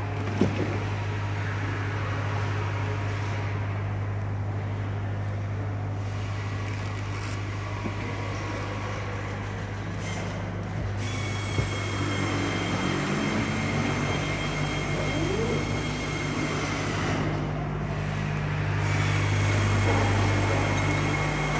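Assembly-line factory machinery droning steadily, with a strong low hum and a faint high whine. A couple of sharp metallic clicks come through, one just after the start and one about halfway.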